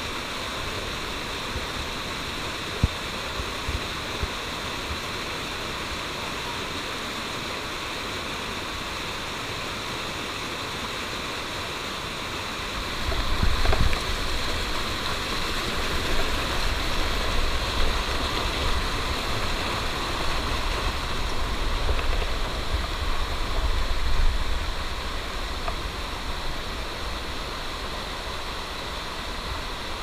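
Rushing forest stream cascading over rocks, a steady white-water hiss. About thirteen seconds in it grows louder, with a low rumble added, and it settles back about twelve seconds later.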